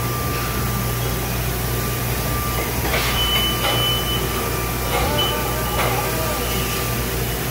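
Steady low hum of running plastic injection molding machines with a thin steady whine over it, and a brief higher tone about three seconds in.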